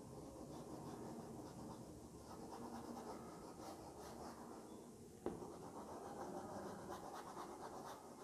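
Chalk scratching and rubbing on a blackboard as a drawing is shaded in with quick, faint strokes, with one sharp tap about five seconds in.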